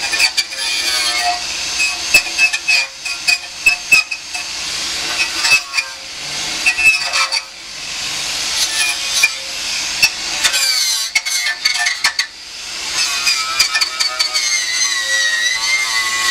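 Hand-tool work: repeated clinks and knocks of tools against metal, with scraping strokes and high squeaks in between.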